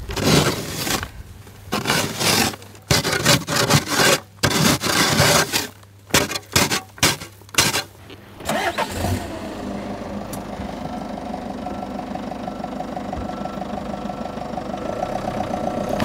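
A shovel chopping and scraping at ice in quick, irregular strokes; then, about halfway through, the Peugeot Boxer van's engine starts and runs steadily.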